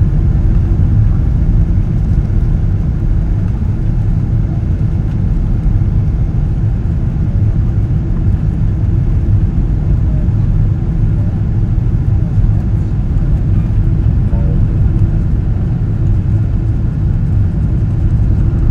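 Steady cabin rumble of an ANA Boeing 777-200 airliner in flight: engine and airflow noise heard from inside the passenger cabin, low and even, with no sharp events.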